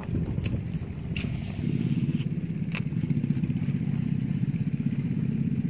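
A small engine running steadily with a fast, low putter, louder from about one and a half seconds in, with a few sharp clicks over it.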